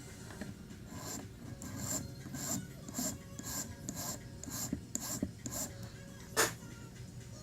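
Hand file rasping over a cured JB Weld epoxy patch on the plastic of a turn-signal multifunction switch, shaping it smooth. The strokes come about twice a second, with one louder stroke near the end.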